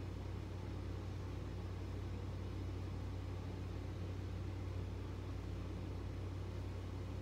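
A steady low hum with an even hiss over it, with no separate knocks or strokes.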